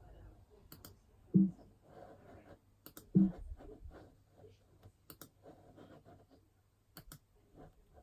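Computer mouse clicking: four quick double clicks, each a press and release, about two seconds apart. Two dull thumps, the loudest sounds, come about one and a half and three seconds in.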